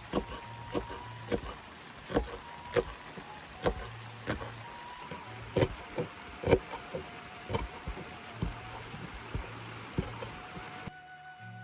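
Knife chopping spring onions on a cutting board: irregular sharp knocks, about one or two a second, over a steady hiss of rain. The chopping stops about a second before the end.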